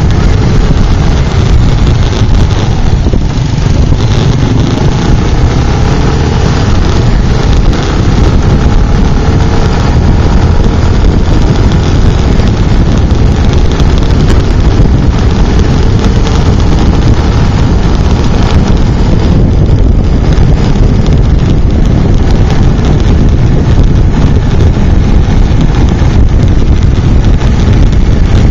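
Wind buffeting the microphone of a camera on a moving motorcycle, with the ride's engine and road noise underneath: a loud, steady low rumble.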